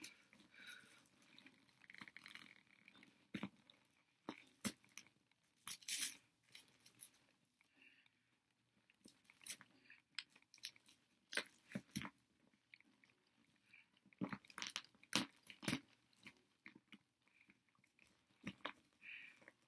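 Paper packaging being handled and unwrapped: irregular crinkles, crackles and light taps.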